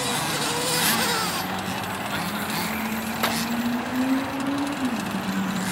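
Small two-stroke petrol engine of a 1/5-scale HPI Baja 5B RC buggy running at low revs, its note creeping slowly up and then dropping back near the end. A single sharp click about three seconds in.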